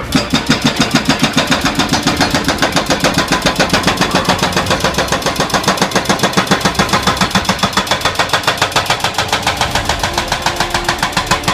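Hydraulic hammer breaker on a backhoe excavator pounding steadily, a rapid even train of hard blows at about eight a second.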